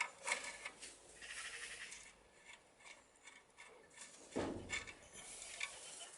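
Faint clicks and rubbing of small metal parts being handled at a motorcycle's front fork leg, where the loose spindle clamp nuts are being undone, with a short grunt about four seconds in.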